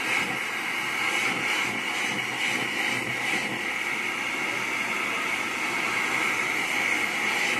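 Gas torch burning steadily, an unbroken hiss with a constant high-pitched edge.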